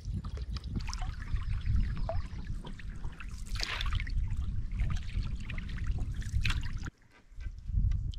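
Canoe paddle strokes: water splashing and trickling off the paddle blade, with a louder splash about every three seconds over a steady low rumble. The sound drops away abruptly near the end, then returns briefly.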